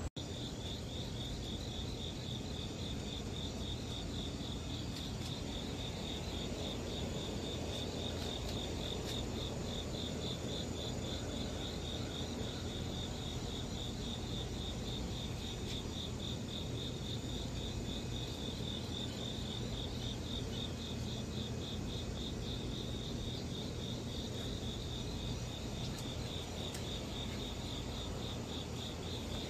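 A cricket chirping steadily, one high note repeated at an even, rapid pulse, over a low background rumble.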